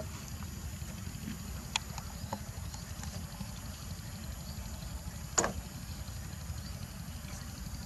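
Steady low rumble of wind on the microphone, with a few short sharp clicks; the loudest comes about five and a half seconds in.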